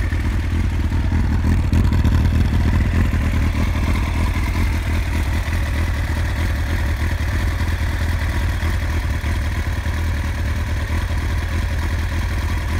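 Kawasaki ZX-9R inline-four engine idling steadily through a Yoshimura aftermarket exhaust.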